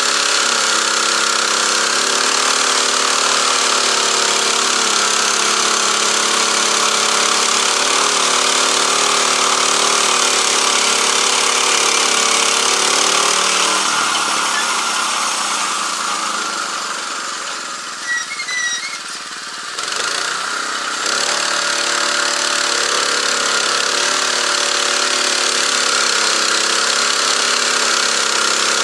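Small petrol engine driving a portable band sawmill, running steadily as the blade goes through a log. About halfway through it slows and quietens for several seconds, then picks back up to speed.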